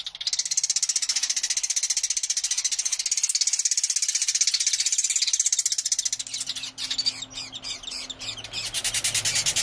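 Swiftlet chicks in the nest begging: a fast, continuous, raspy chatter that turns ragged and broken for a couple of seconds near the end, with a faint low hum underneath in the second half.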